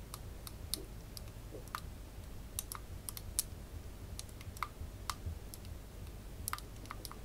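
Faint, irregular light clicks and taps of a paintbrush handle against the inside of a small glass bottle as paint-soaked cotton wool is stirred in it.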